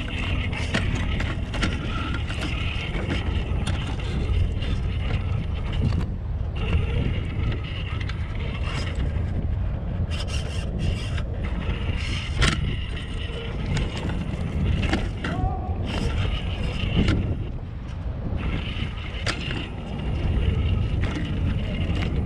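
Radio-controlled rock crawler truck driving over stones: its electric motor and drivetrain run under a heavy low rumble, and repeated sharp knocks and scrapes come from the tyres and chassis hitting rocks.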